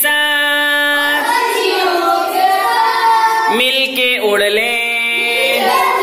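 Children singing a slow action song together in long held notes, with a short break about three and a half seconds in.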